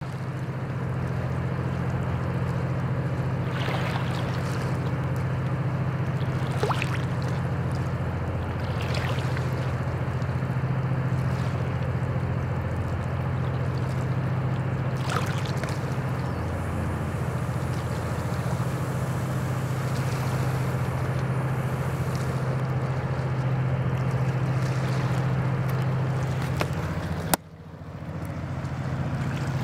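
Steady low drone of a distant tugboat's diesel engine moving a loaded gravel barge, with a rushing wash under it. A sharp click near the end, after which the drone drops away and swells back in.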